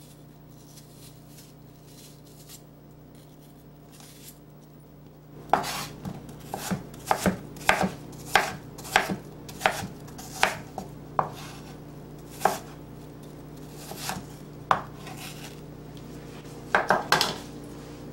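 Santoku knife chopping a peeled apple on a wooden cutting board: sharp knocks of the blade striking the board, about two a second from about five seconds in, then a few scattered strikes and a quick flurry near the end.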